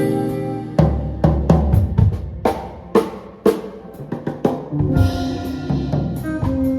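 A live rock band playing, with the drum kit out in front: a run of snare and bass-drum hits over low bass notes, then a cymbal wash about five seconds in as the guitar comes back.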